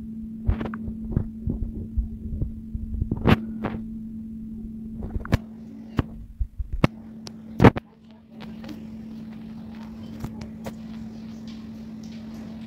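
A steady low hum, with scattered clicks and knocks; the loudest knock comes a little past halfway, just before the hum briefly cuts out.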